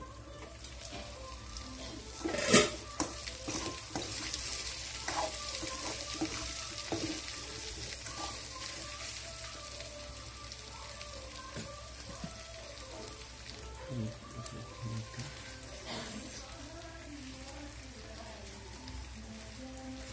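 A metal pot lid clanks once, about two and a half seconds in, then pork curry sizzles in the uncovered aluminium pot. Soft background music plays underneath.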